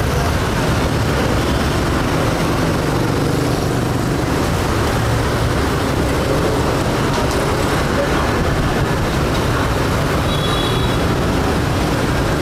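Steady street traffic noise, a loud even rumble of passing vehicles.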